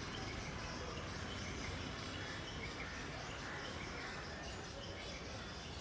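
Birds chirping here and there over a steady low rumble of outdoor background noise.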